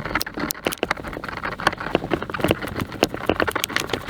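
Irregular clicks, taps and knocks of hands and tools working on a car's interior trim and fasteners, several a second.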